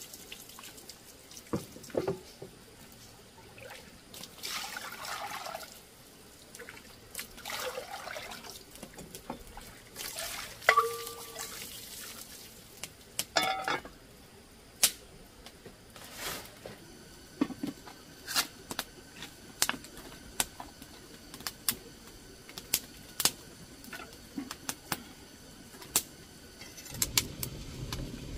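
Water splashing and trickling in short spells, with scattered clinks and knocks, then a run of sharp taps in the second half.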